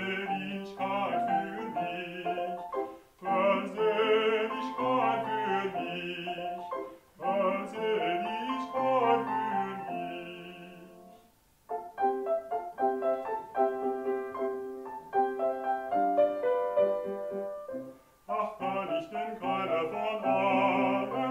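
A man singing a classical aria with vibrato over piano accompaniment. About halfway through the voice stops and the piano plays alone for several seconds, then the singing comes back in near the end.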